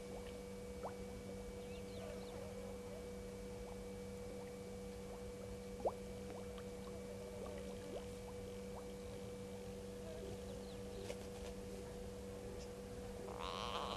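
A steady electrical hum with faint bush ambience and a few small clicks. Near the end an animal starts calling, and the call grows louder.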